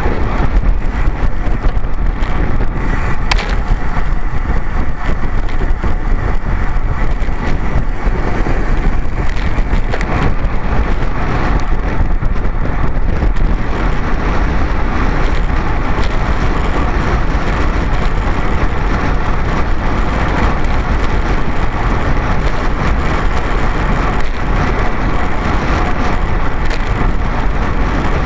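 Steady rush of wind and road noise on a camera riding a road bicycle at speed over asphalt, with a deep rumble and a few faint clicks.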